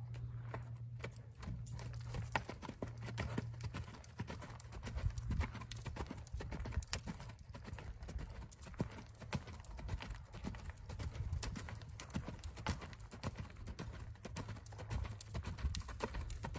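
Hoofbeats of a ridden sorrel mare moving over sand footing, a run of short uneven thuds and clicks, over a steady low rumble.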